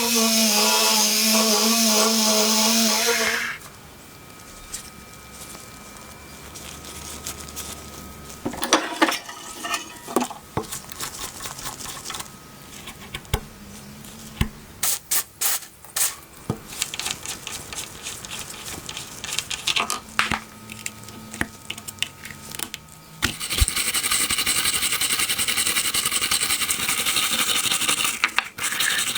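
Hand work on small metal parts: scattered clicks, taps and scraping. Near the start and again near the end there are loud spells of steady hissing noise from a powered tool, each lasting a few seconds.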